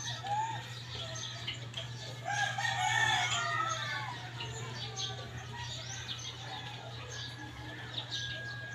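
Roosters crowing and chickens clucking, loudest about two to four seconds in, over a steady low hum.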